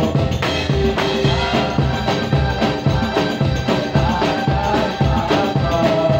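Music for the Javanese Badui folk dance: drums beat a steady, driving rhythm under a held melody line.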